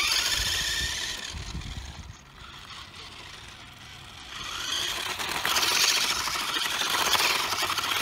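Small electric RC off-road truck at full throttle: motor and gear whine with tyre noise on coarse asphalt, fading as it speeds away, then growing louder again as it drives back and passes close by near the end.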